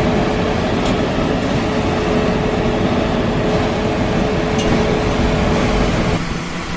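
Concrete mixer truck running: a steady engine noise with a constant whine that stops near the end.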